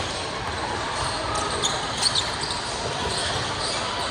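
Basketball being dribbled on a gym court during a game, over steady background noise of voices in the hall, with a few short, sharp high sounds about two seconds in.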